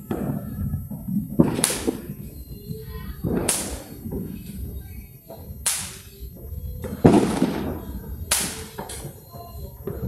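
Fireworks exploding: five sharp cracks roughly every one and a half to two seconds over a steady low rumble. The one about seven seconds in trails off into a longer hiss.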